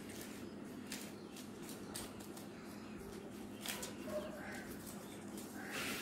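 Faint clicks and rustles of hands handling paper on a hard floor, over a steady low hum.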